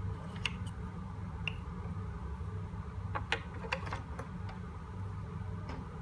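Plastic cuvettes being lifted out of and slotted into a colorimeter's sample holder: a scatter of small clicks and taps, most of them about three to four seconds in, over a steady low hum.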